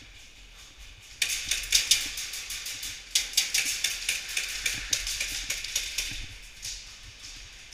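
Airsoft guns firing in rapid strings in a close-quarters game: a dense clatter of sharp clicks and metallic snaps that starts suddenly about a second in and thins out near the end.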